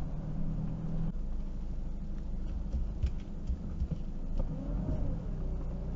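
A motorhome's engine and tyres rumbling low and steady as it rolls at walking pace, heard from inside the cab, with a few light knocks about halfway through.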